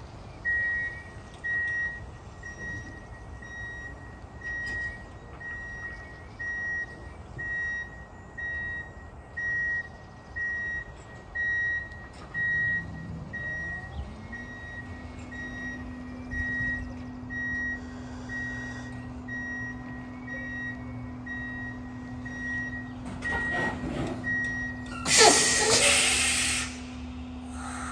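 Electric semi truck's reversing alarm beeping about once a second as it backs up, with a steady low hum joining about halfway through. Near the end the beeping stops and a loud burst of air hiss follows, typical of the air brakes being set once the truck stops.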